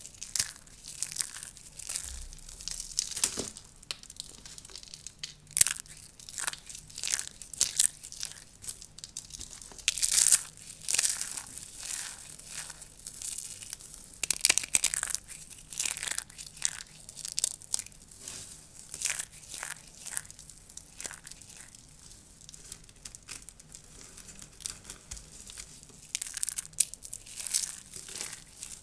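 Dry soap curls crunching and crackling as they are crushed and broken apart: a dense run of irregular crisp snaps, with louder crunches now and then.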